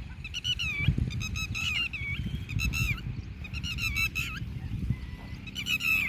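Red-wattled lapwings giving repeated bursts of shrill, strident alarm calls, the mobbing calls of birds defending their eggs against dogs.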